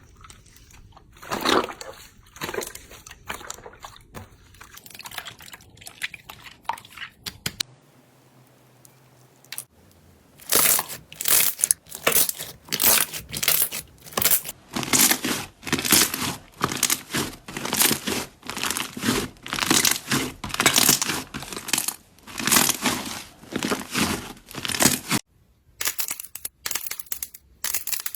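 Crunchy slime being pressed and squeezed by hand, crackling with each press. Sparse at first, then from about ten seconds in a steady run of crackles about two a second.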